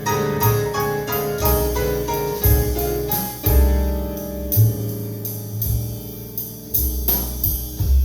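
Jazz piano trio recording played through Definitive Technology Mythos ST loudspeakers: piano melody over deep bass notes, with cymbal strokes keeping time.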